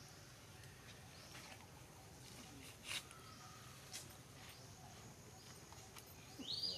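Faint outdoor background with a few short, high-pitched animal calls: brief chirps about three and four seconds in, and a longer high call that rises and then holds near the end.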